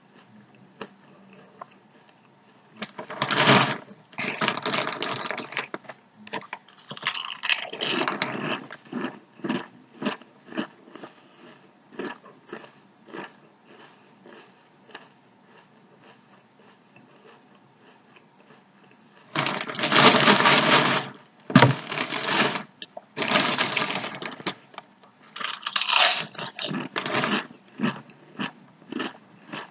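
Someone eating Sun Chips: several loud crunching bursts of a second or two, with quieter rapid crunchy chewing clicks in between.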